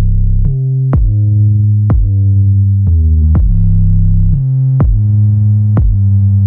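Electronic background music with a heavy synth bass and a steady drum-machine beat.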